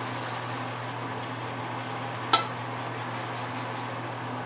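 Shaving bowl being handled, with one sharp clink a little past halfway, over a steady low hum.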